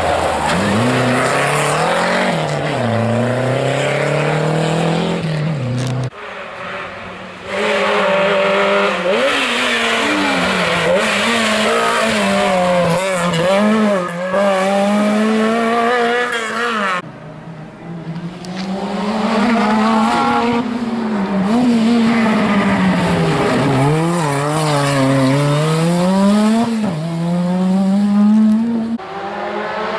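Rally car engines at full throttle through tight corners, one car after another. Each engine revs up and drops back sharply with every gear change and lift-off, and each clip cuts off abruptly. The first clip is a Renault 5 GT Turbo.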